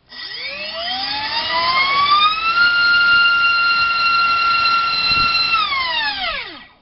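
Multistar Viking 1808 2600kv brushless outrunner motor driving a DALprop 4045 three-blade bullnose propeller on a 4-cell battery. The whine rises as the throttle opens over about two and a half seconds, holds steady at full throttle for about three seconds, then falls away as the motor spools down and stops near the end.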